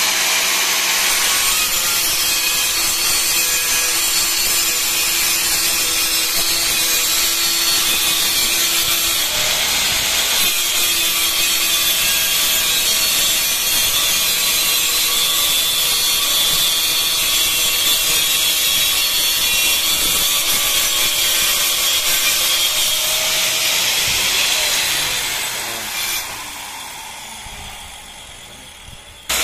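Angle grinder on a homemade sliding jig, its cutting disc grinding a bevel along the edge of a ceramic wall tile: a steady high motor whine mixed with gritty grinding noise. About 24 seconds in it fades and winds down in pitch over several seconds.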